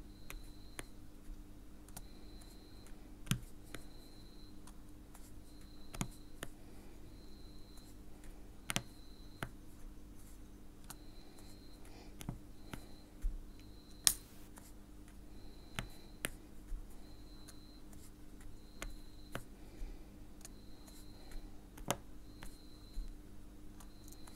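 Diamond painting drill pen pressing round resin drills onto a sticky canvas: light clicks and pops every second or two at an uneven pace, one sharper click about halfway through. A faint steady hum and a faint high pulsing tone run underneath.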